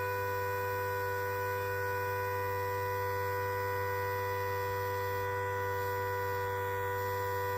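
Small battery-powered model warning siren running at a steady pitch. It sounds two tones at once over a low hum, with no rise or fall.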